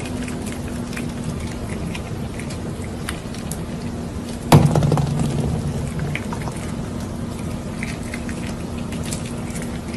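A prairie dog gnawing a piece of corn on the cob, scattered small crunching clicks over a steady hiss and low hum. About halfway through there is one louder thump.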